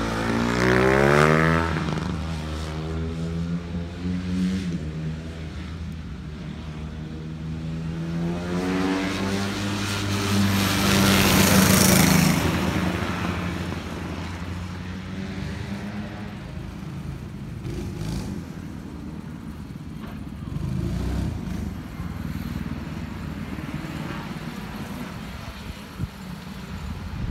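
Honda CRF150 supermoto's single-cylinder four-stroke engine revving up and down through the gears as the bike laps the circuit. It is loudest as it passes close about a second in and again around eleven to twelve seconds in, and quieter while the bike is across the track.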